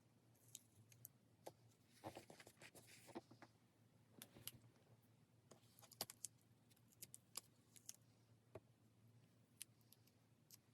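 Faint scattered clicks and taps of stationery handled on a desk, with a short stretch of paper rustling and scratching about two seconds in.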